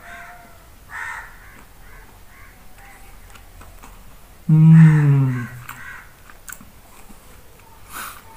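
A man chewing a piece of fried chicken, with one loud, falling 'mmm' of enjoyment about halfway through, about a second long.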